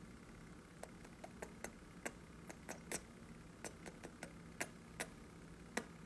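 A string of light, sharp clicks and taps at uneven spacing, about fifteen in all, over a faint steady hum.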